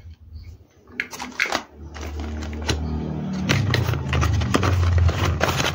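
Packaging and small parts being handled close to the microphone: a few sharp clicks about a second in, then loud rustling and rubbing with a low rumble and scattered clicks.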